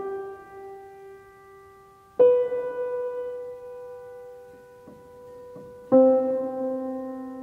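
Slow intro music on piano: single struck notes or chords ringing out and fading, a new one struck about two seconds in and another near six seconds.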